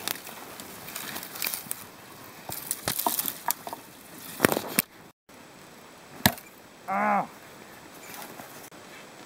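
Snow-covered brush snapping and cracking as branches are broken off and dragged through the thicket: a run of sharp cracks through the middle, then one more loud crack a little past six seconds in. A brief pitched sound follows about seven seconds in.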